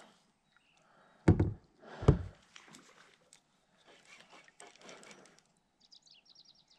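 Two dull knocks about a second apart, the loudest sounds here, as gear bumps the plastic kayak, then the faint clicking of a spinning reel being cranked.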